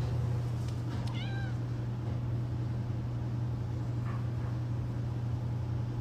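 Domestic cat meowing once, a short call that rises and falls about a second in, over a steady low hum.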